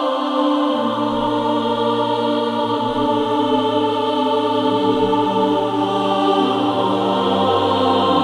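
Sampled all-female choir (sopranos and altos) singing slow, sustained chords. A low note joins about a second in, and the harmony shifts a few times as the chords change.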